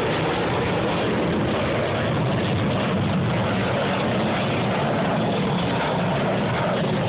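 Steady, loud jet noise from the F-22 Raptor's twin Pratt & Whitney F119 turbofan engines at high power during a display maneuver.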